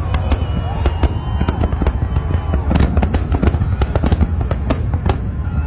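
Large fireworks display: rapid, overlapping bangs of aerial shells bursting, over a continuous low rumble of many explosions at once.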